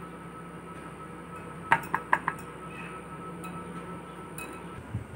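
Utensils clinking against a glass mixing bowl as flour is tipped in from a plastic measuring cup: about four quick, ringing clinks about two seconds in, over a low steady hum.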